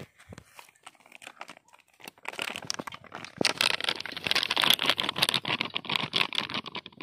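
A plastic cornflour packet crinkling as it is handled and shaken to pour the flour into a steel bowl. A few scattered crackles come first, then dense, continuous crinkling from about two seconds in.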